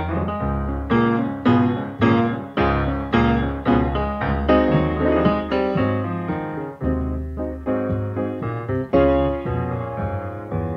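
Solo jazz piano playing a blues: strong bass notes and chords struck in a steady beat under the right-hand melody.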